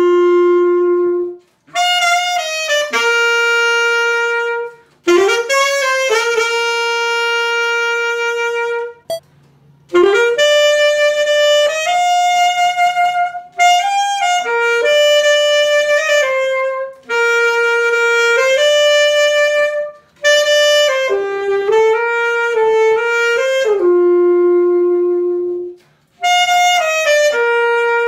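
Solo saxophone on a Vandoren mouthpiece playing a slow melody of long held notes, with short breaks between phrases. It is two separate takes, the second starting about ten seconds in.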